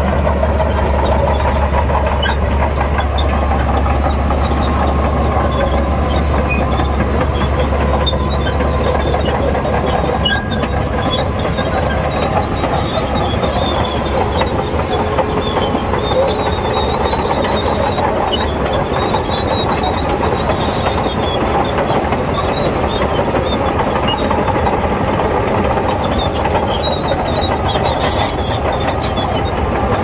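Bulldozer's diesel engine running under load with the clank and squeal of its steel crawler tracks. A deep low drone in the engine note eases off about eight seconds in.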